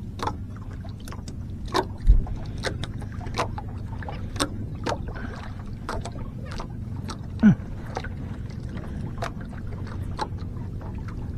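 On-board sounds of a small fishing boat: a steady low hum with frequent small clicks and knocks. A heavy thump comes about two seconds in, and a short creak sliding down in pitch comes about seven and a half seconds in.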